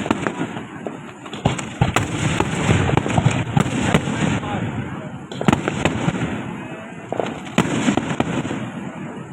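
Fireworks going off in quick succession: a steady crackle of firecrackers with sharper bangs every second or two, easing off near the end.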